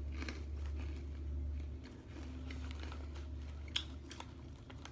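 Person chewing and biting food close to the microphone, with a few faint crunches over a steady low hum.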